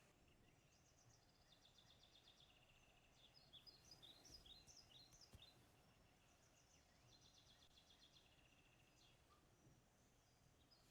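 Near silence with faint bird chirps: runs of quick, short, high notes, a second or two each, coming several times over a light background hiss.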